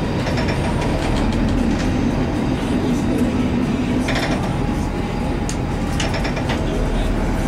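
Narrow-gauge diesel multiple unit heard from the driver's cab: the diesel running with a steady rumble and the wheels rolling on the rails. A few sharp clicks come from the running gear about four and six seconds in.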